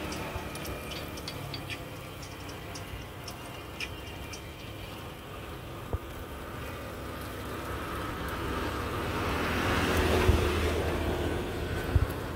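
Coconut rice batter sizzling and crackling faintly in a hot cast-iron khanom krok pan, with the metal spoon knocking on the pan twice, about six seconds in and near the end. A low, steady rumbling background swells around ten seconds in.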